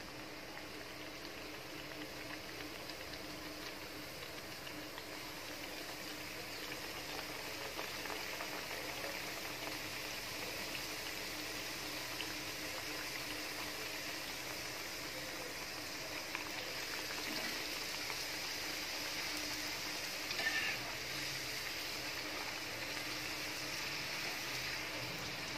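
Kajjikayalu (stuffed maida-dough pastries) deep-frying in hot oil: a steady sizzle and bubbling that gradually gets louder. A brief, louder noise comes about twenty seconds in.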